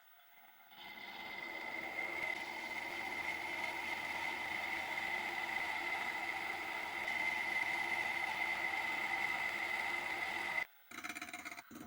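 A small workshop machine running steadily, with a constant high whine over a noisy hum. It comes up about a second in and cuts out briefly twice near the end.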